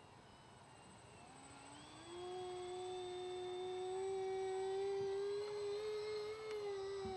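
Electric motors and propellers of an RC V-22 Osprey tiltrotor model in flight, giving a steady propeller whine. The whine rises in pitch about two seconds in, then holds and grows louder as the nacelles tilt from hover toward forward flight.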